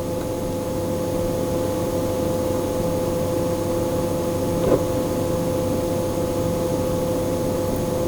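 Steady mechanical hum with a held tone, with one faint tap a little past halfway.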